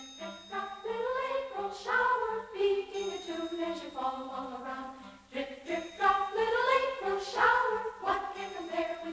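Music with a singing voice carrying the melody over a repeating low note.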